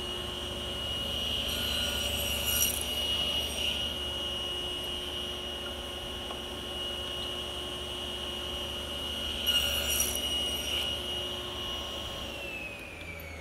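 Table saw running with a steady whine while a tenoning jig pushes a workpiece through the blade to cut tenon cheeks. The blade cuts into the wood twice, about two seconds in and again about ten seconds in. Near the end the saw is switched off and its whine falls in pitch as the blade spins down.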